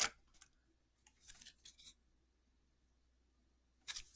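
A few faint, soft rustles and light clicks of trading cards being handled, then near silence.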